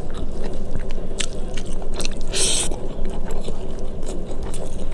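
Close-up eating sounds: chewing with many small wet mouth clicks, and one short scraping burst about halfway through, over a steady low background rumble.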